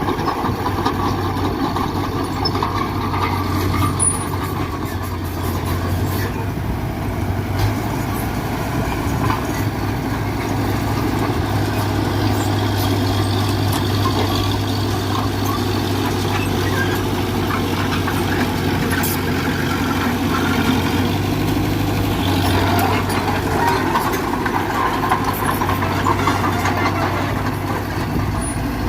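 Diesel engine of heavy earthmoving machinery running steadily, with a constant low hum.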